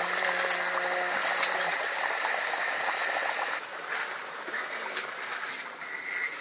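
Chicken curry boiling in a wok over a wood fire: a steady bubbling hiss that falls away sharply about three and a half seconds in, leaving a quieter fire with a few crackles.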